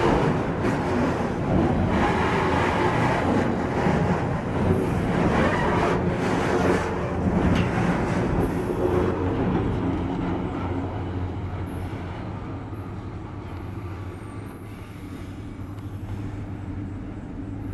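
Freight train climbing a grade behind U23C and SD38M diesel-electric locomotives working hard: a steady low engine drone mixed with rolling wagon and wheel noise. It grows gradually quieter over the second half.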